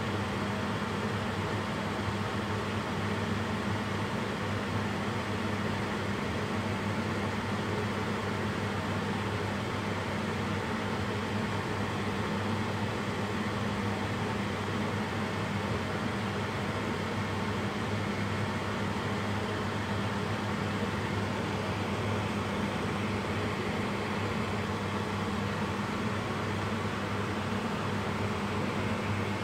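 Steady electric fan hum with an even hiss, unchanging throughout.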